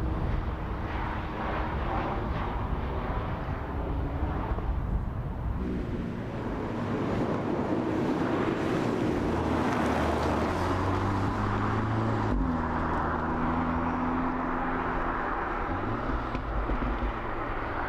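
Audi S3 Cabriolet's turbocharged four-cylinder engine running as the car drives by, over a steady rush of road noise. The engine's pitch shifts in steps a few times.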